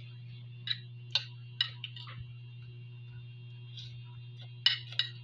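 Close-up eating sounds: a scattered series of short, sharp mouth clicks and smacks, about eight in all, the loudest about four and a half seconds in, over a steady low hum.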